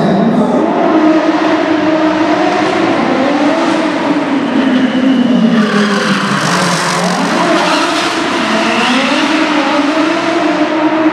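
Audi Sport Quattro S1 rally car's turbocharged five-cylinder engine revving up and down hard as the car drifts. From about six seconds in, a hiss of tyre squeal and skidding joins it.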